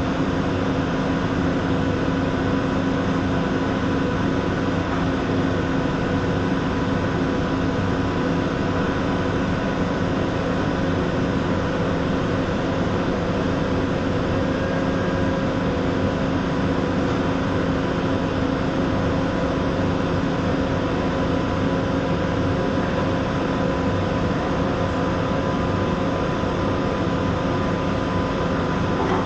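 Ozen TIG welding machine at work, giving a steady hum with a constant hiss that does not change.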